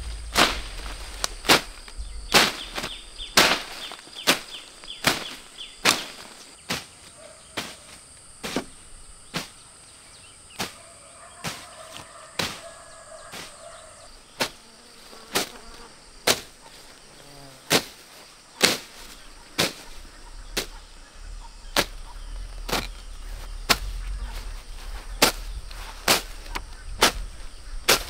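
A long-handled blade slashing through weeds and undergrowth: a steady run of sharp, short strokes, about one or two a second.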